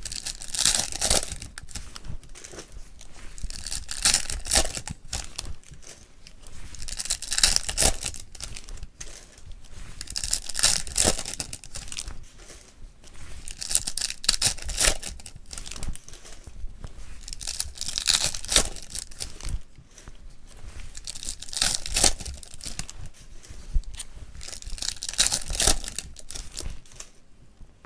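Wrappers of Topps Match Attax Chrome card packs being torn open one after another and crinkling as the cards are pulled out. There is a burst of tearing about every three to four seconds, eight in all.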